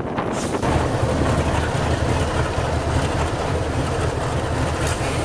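GE ES43BBI diesel-electric locomotive running as it approaches, a deep steady engine rumble that strengthens about half a second in.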